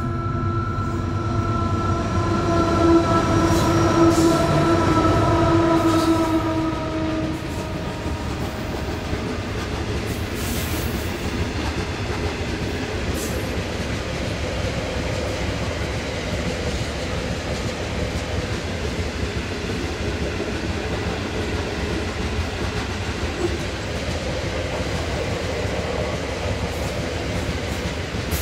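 Four GE C44aci diesel locomotives passing at speed, their engine note dropping in pitch as they go by. Then a train of loaded iron ore wagons rolls past with a steady wheel rumble, clickety-clack and an occasional sharp click.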